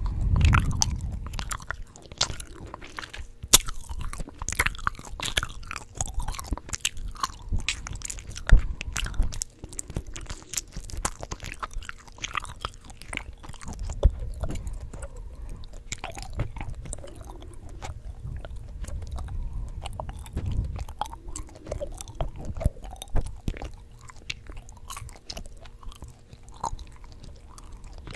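Gum being chewed, with many sharp clicks and smacks at irregular intervals.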